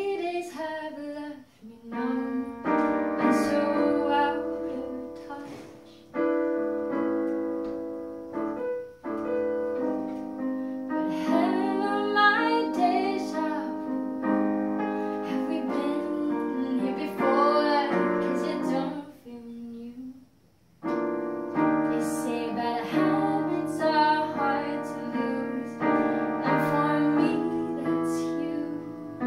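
A woman singing while accompanying herself on an electric keyboard, playing sustained piano chords. The music breaks off for about a second about two-thirds of the way through, then resumes.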